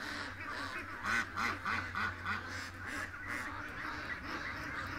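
A flock of penned domestic ducks quacking, many short calls overlapping one another.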